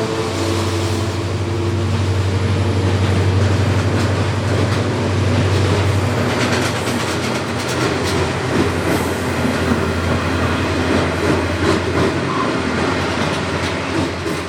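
Diesel grain train passing: a steady low engine drone for about the first six seconds, then the wagons rolling by with rapid irregular clicking of wheels over the rails.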